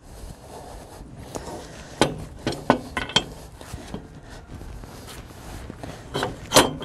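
Steel clinks and knocks of a hitch pin and the auger's lower arm being worked into a tractor's three-point hitch lower link: a cluster of sharp clicks about two to three seconds in and two more near the end.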